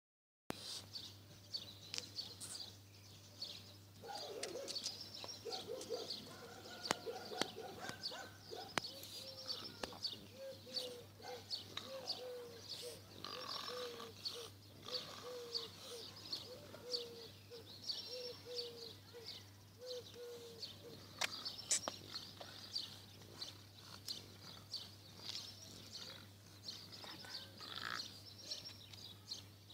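Outdoor songbirds chirping and twittering throughout. Through the middle there is a run of short, low, evenly repeated calls.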